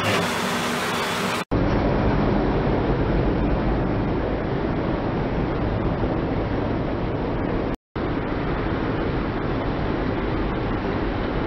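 Steady rumbling noise of a car creeping slowly forward on concrete, with no crunch yet. The audio cuts about a second and a half in and drops out briefly near eight seconds.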